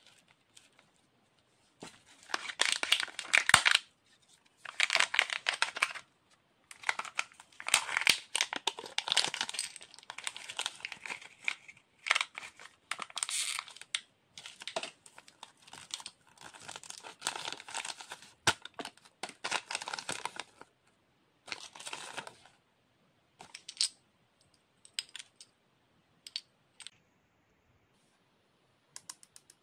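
Foil wrapper of a Kinder Joy egg being crinkled and torn off by hand, in repeated bouts of crackling. After that, only a few light clicks near the end.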